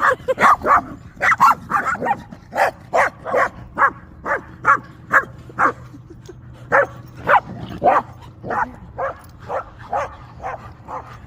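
A dog giving a long run of short, quick barks, about two a second, getting softer in the second half.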